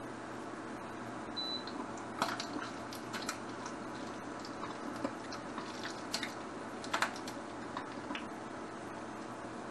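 Metal tongs clicking and scraping against a frying pan as pancetta is stirred, several sharp clicks with the loudest near the end. Under them is a steady hiss from the boiling pasta pot and the frying pan.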